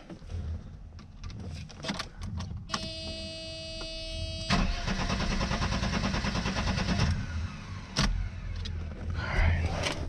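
Mercedes M103 straight-six being cranked on the starter for about two and a half seconds with an even, regular cranking rhythm, a sign that compression is even across the cylinders. A steady electrical tone comes before the cranking, and a sharp click follows it.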